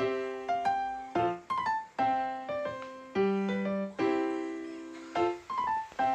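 Background piano music: a slow, gentle melody of single notes and chords, each struck and left to fade.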